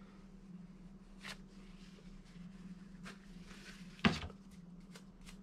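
Faint scrubbing and wiping strokes while a mountain bike's dirty crank and chainring area is cleaned, with one sharp knock about four seconds in, over a steady low hum.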